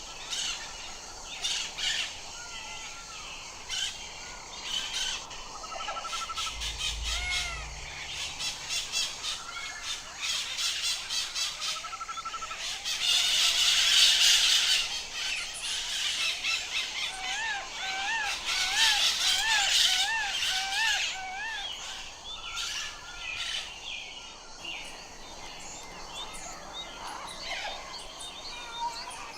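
Parrots calling: a busy mix of chirps, clicks and short squawks, with a loud harsh screech about halfway through followed by a quick run of rising-and-falling whistled notes.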